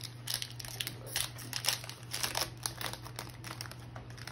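Foil wrapper of a trading-card pack crinkling as it is torn open and the cards are pulled out: a run of irregular crackles.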